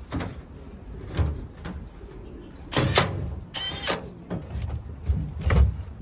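Thin sheet-metal access panel of a washing machine being slid and pushed back into place on the cabinet: a series of metal scrapes and knocks, the two loudest about three and four seconds in.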